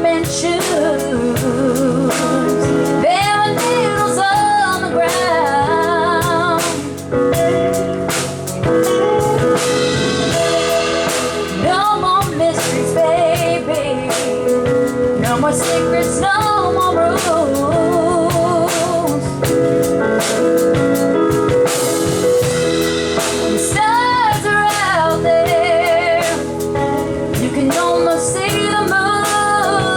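Live soul band playing, with a lead singer holding long notes with vibrato over a drum kit and backing instruments.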